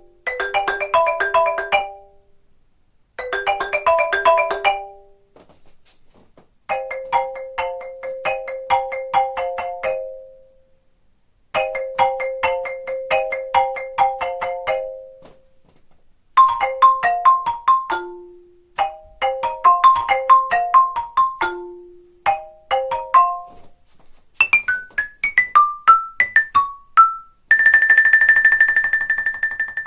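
Xylophone playing a series of well-known phone ringtone tunes, each a short phrase of quick struck notes with brief pauses between, some phrases played twice. Near the end a steady, buzzy high tone holds for about two seconds.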